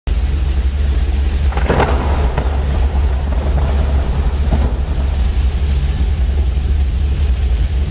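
Heavy rain pelting a moving microvan, a dense steady hiss over a constant deep rumble of the driving, with a louder rush about two seconds in.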